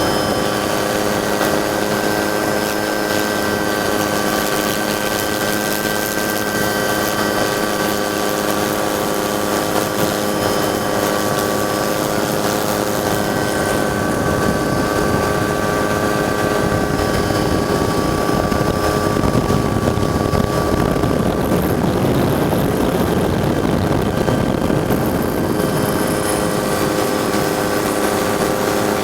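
Helicopter turbine and rotor running steadily, heard from on board: several steady whining tones over a dense rushing noise that swells a little from about 18 to 26 seconds in.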